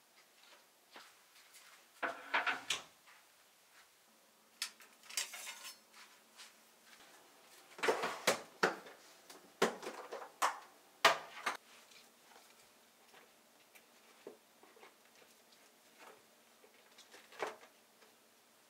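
Kitchen handling sounds: irregular plastic clicks, knocks and rustles as a food-storage container's lid is taken off and cloth-wrapped vegetables are lifted out. The busiest, loudest handling comes in the middle, with scattered lighter clicks around it.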